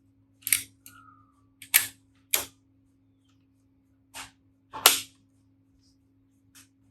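Leaf shutter of a Zeiss Ikon 120 folding camera being cocked and fired at 1/200 s, a run of about five short, sharp clicks with the loudest near the end.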